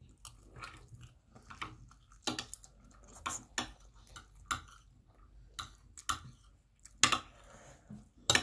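Metal spoons clinking and scraping against plates of rice, mixed with close chewing and mouth sounds, as a string of irregular small clicks; the loudest clinks come near the end.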